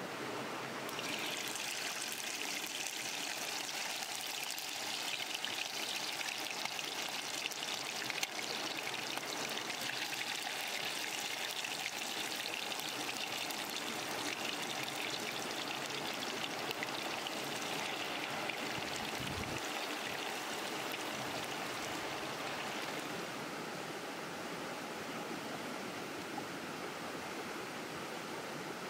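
Marinated fish pieces sizzling as they deep-fry in hot oil in a clay pot, the sizzle starting up about a second in.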